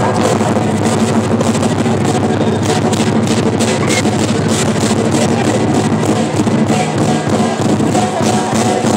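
Background music with sustained tones and a steady drum beat.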